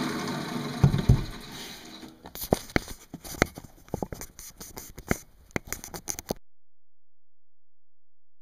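Wood lathe switched off and spinning down, its running sound fading over the first two seconds, with two heavy thumps about a second in. Then scattered light clicks and knocks of handling, until the sound cuts to silence about six seconds in.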